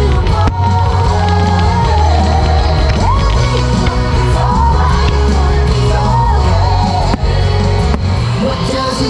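Pop song with a lead singer over a heavy, steady bass line.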